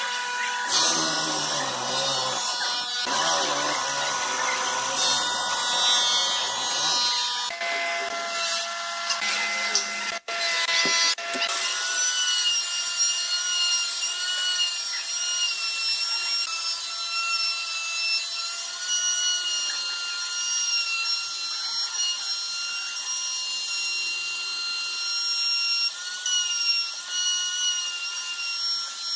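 Corded electric drill with a Forstner-type bit boring into a thick pine disc. About ten seconds in it gives way to a DongCheng DMR02-12 plunge router running with a steady high whine as it cuts a round recess into the pine.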